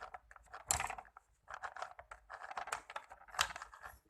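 Mini sewing machine worked slowly by hand without power: irregular small clicks and rattles from its needle and feed mechanism, with two sharper clicks, about a second in and near the end. The machine is being cranked to feel for binding after its thread tensioner has been loosened.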